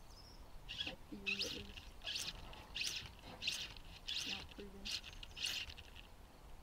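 Fly line being stripped in by hand in short, even pulls to retrieve a bass fly: a soft swish about every two-thirds of a second, eight or so in a row.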